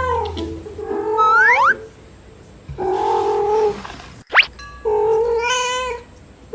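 Domestic cats meowing back and forth in a squabble: about four drawn-out meows, one rising in pitch, with a quick rising whistle-like sweep about four and a half seconds in.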